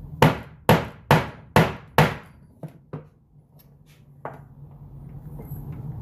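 Five sharp hammer blows on a Lee Loader die, about two a second, crimping a rifle case mouth onto its bullet, followed by a few fainter knocks.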